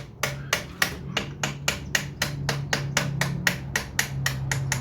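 Rapid, light metal-on-metal tapping, about five even taps a second: a wrench used as a drift is struck to knock the piston pin out of the piston of a two-stroke motorized bicycle engine.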